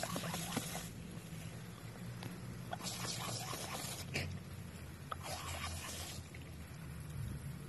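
Pomeranian panting and breathing with its mouth open: a breathy hiss of about a second, repeating every two and a half seconds or so, over a steady low hum.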